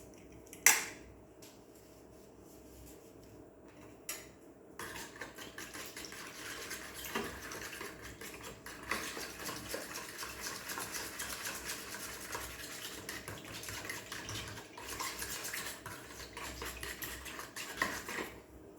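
Utensil clinking against a mixing bowl twice, then from about five seconds in stirring ingredients in the bowl, a continuous scraping clatter of metal on the bowl that stops shortly before the end.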